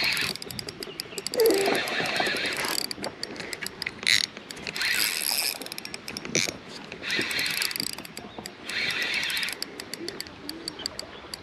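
Spinning reel being cranked in short spurts with pauses between, while a hooked fish is played in on the line.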